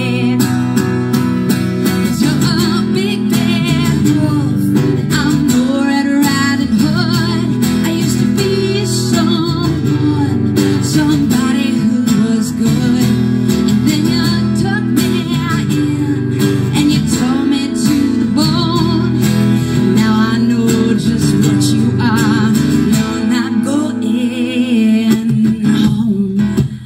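Acoustic guitar strummed steadily, with a woman singing over it, amplified through a small PA.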